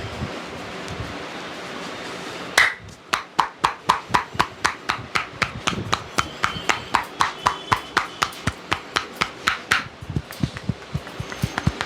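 A barber's hands striking a client in a rhythmic tapping massage: sharp claps, about four or five a second, starting about two and a half seconds in. Near the end they turn into duller, lower, faster thumps.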